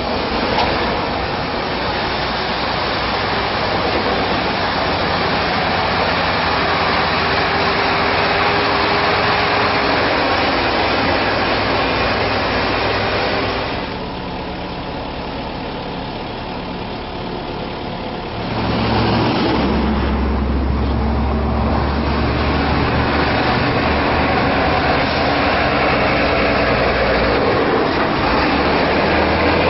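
Sinotruk HOWO mining dump truck's diesel engine running under load, mixed with road and tyre noise. The sound drops for a few seconds about halfway through, then comes back louder with a steady deep drone.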